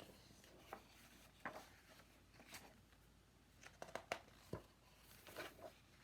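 Faint paper rustles and soft taps of a picture book being handled and its pages turned, a cluster of small clicks about four seconds in.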